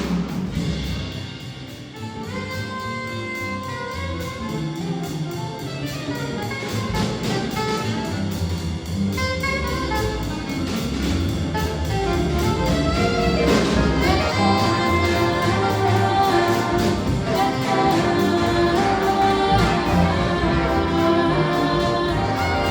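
Instrumental ensemble with brass, trumpet prominent, playing an arrangement of a 1960s rock song. It grows louder through the middle of the passage.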